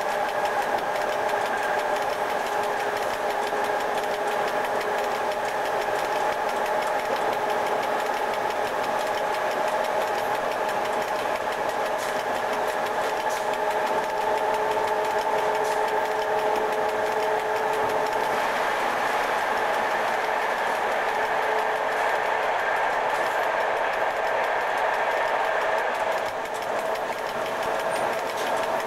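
Cab noise of an FS E.656 electric locomotive under way: a steady mechanical hum with several held whining tones over the running noise of the train on the track. The tones drift slightly in pitch, and the level dips briefly near the end.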